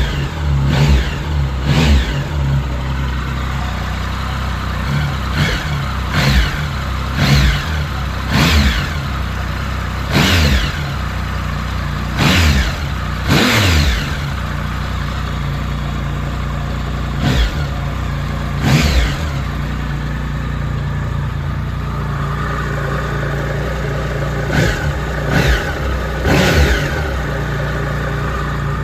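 2007 Triumph Tiger 1050's 1050 cc inline-three engine on its original stock exhaust, idling with a dozen or more quick throttle blips in clusters, each rev rising sharply and dropping back to idle. There are stretches of plain idle in the middle and near the end.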